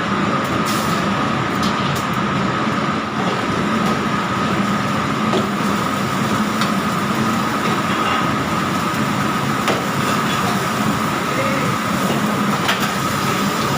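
Steady mechanical roar of a commercial kitchen's gas burners and extractor fan, with a constant whine, and a few faint clicks.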